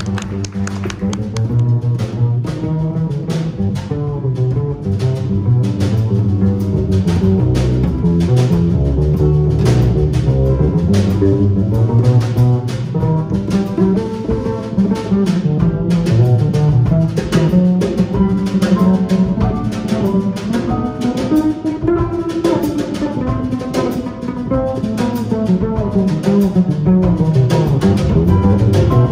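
Live jazz: an upright double bass plays prominently over piano and drums, with a steady run of cymbal strokes behind it, in an instrumental passage without vocals.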